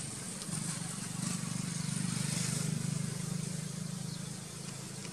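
An engine running steadily, a low even drone that swells slightly midway.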